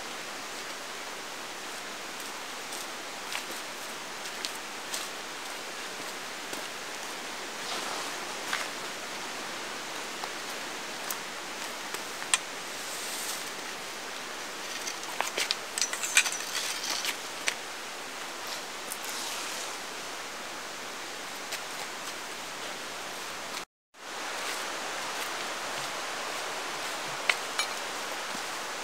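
Rustles and light clicks of a tarp, trekking pole and guylines being handled as the tarp is pitched, over a steady rushing noise. The sound drops out for a moment about 24 seconds in.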